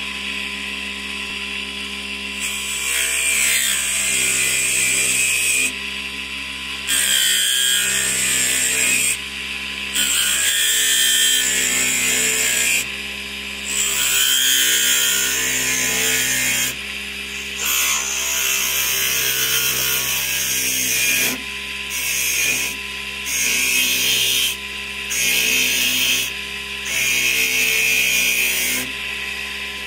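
A mini wood lathe's small motor runs steadily with a humming whine while a hand-held chisel cuts into spinning low-density balsa. About eight scraping cutting passes, each one to three seconds long, rise well above the motor hum, and they get shorter and closer together near the end.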